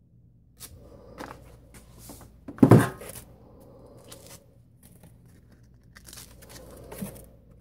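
A hook-and-loop sanding disc being peeled off an orbital sander's pad, with one loud rip about two and a half seconds in and a smaller one near the end, among the rustle and crinkle of paper sanding discs being handled.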